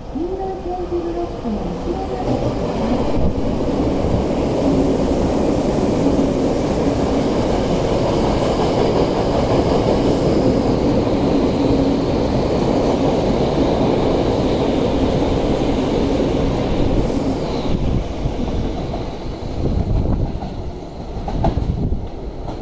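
Tobu 10000-series electric commuter train running alongside the platform: a steady loud rumble of wheels and running gear with a low hum. Near the end a second electric train approaches, with two louder swells of rumble.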